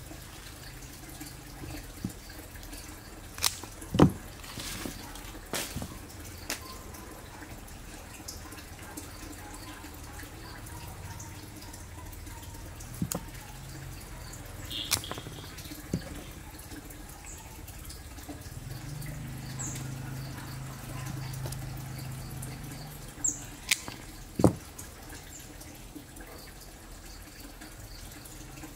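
Handling noise from hands working a small plant cutting with pruning shears: scattered sharp clicks and taps, the loudest about four seconds in and again about two-thirds through, over a low steady background hum.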